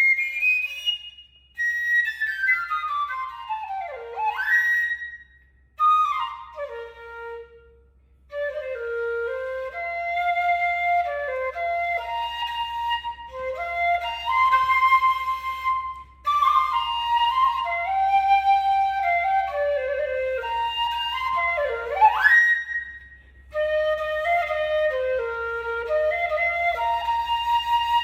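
Vietnamese bamboo flute (sáo trúc) playing a slow melody in phrases with brief pauses between them, with wide swooping slides down and back up in pitch.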